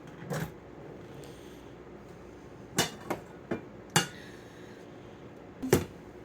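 Dishes knocking and clinking as a glass bowl and plates are handled: about six short, sharp knocks spread over several seconds, one of the loudest near the end.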